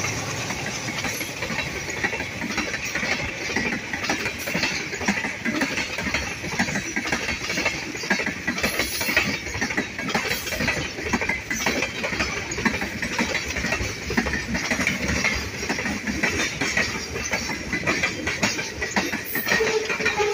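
Freight train tank cars rolling past, their steel wheels clicking and clanking over the rail joints in a steady stream over a continuous rolling rumble and hiss.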